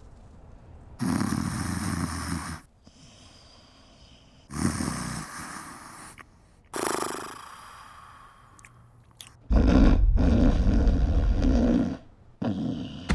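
A person snoring loudly: four snores about three seconds apart, the last the loudest and longest.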